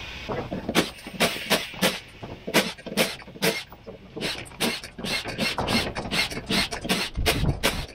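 Blue cordless power driver, most likely an impact driver, triggered in quick short bursts, about three a second, as it backs out the bolts of a beadlock wheel's clamping ring.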